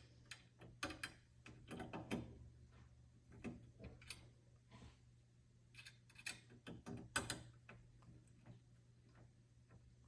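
Faint, irregular small clicks and taps of metal as the set screws of a metal sauna door handle are tightened, with a few louder clinks, over a faint steady low hum.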